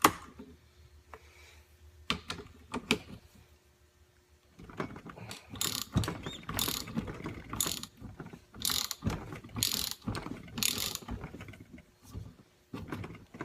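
A socket ratchet loosening the inner cap of a KYB fork cartridge: a few separate clicks at first, then a run of clicking strokes about one a second as the handle is swung back and forth.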